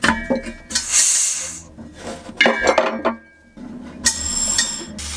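Metal gas fittings on a butane bottle and regulator clinking twice, with short bursts of gas hissing about a second in and near the end as the bottle is turned on: gas is leaking from the newly fitted connections.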